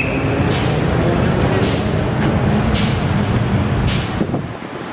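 Heavy truck diesel engine running close by, a dense low rumble, with short bursts of hiss about once a second. The rumble drops off about four seconds in.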